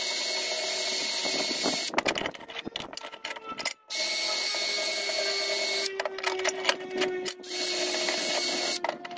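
Cordless drill spinning a wire wheel brush against a cast aluminum bar, wire-brushing its surface clean: a steady scratchy whir that breaks off briefly several times as the drill is lifted and repositioned.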